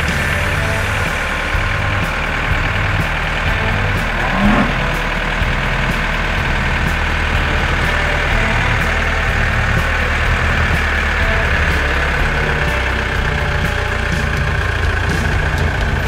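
Cartoon tractor engine sound effect running steadily, with a short rising whistle about four and a half seconds in.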